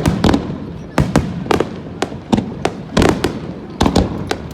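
Star mine fireworks barrage: aerial shells bursting in rapid, uneven succession, about two to three loud bangs a second, each with a short echoing tail.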